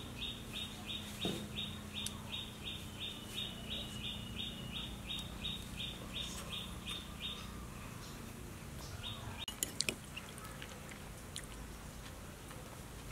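A bird calling in a rapid, even series of short high chirps, about three a second, which stops about seven seconds in and comes back briefly near nine seconds. A few sharp clicks follow around ten seconds in.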